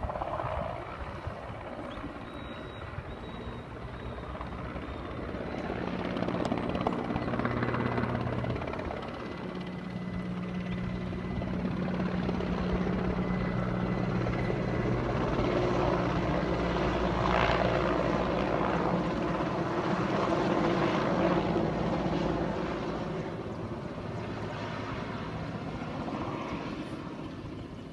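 Federal Police helicopter flying past, its rotor and engine making a steady drone. It grows louder over the first several seconds, holds through the middle, then eases off near the end.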